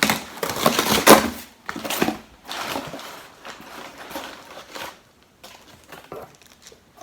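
Cardboard box and paper packaging of an iPhone 12 being handled and opened: a run of crinkling, rustling and scraping sounds, loudest about a second in, fading to a few faint scuffs over the last couple of seconds.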